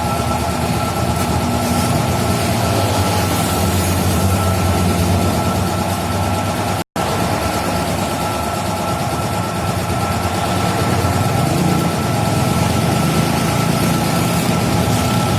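Yamaha RX-King two-stroke single-cylinder motorcycle engine running steadily at a low, even speed, without revving. The sound cuts out completely for a split second about seven seconds in.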